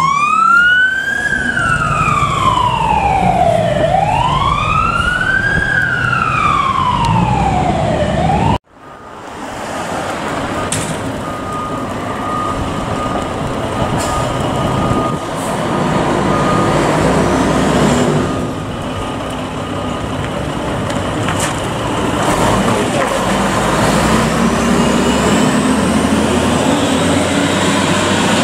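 Fire engine siren on a slow wail, rising and falling about every four seconds, which cuts off suddenly about a third of the way in. Then come the rumble of heavy fire-truck engines and street noise, with a faint siren rising again near the end.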